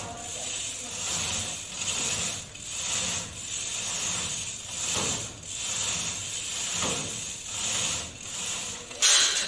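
Manual chain hoists hauled by hand to lift an escalator truss: the hand chains rattle and the ratchets click, swelling with each pull a little more than once a second. A louder metallic clatter comes near the end.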